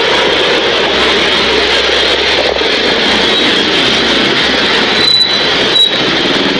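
Motorcycle ride heard on a pillion passenger's phone: a steady rush of wind and road noise over the running engine, with two brief knocks about five and six seconds in.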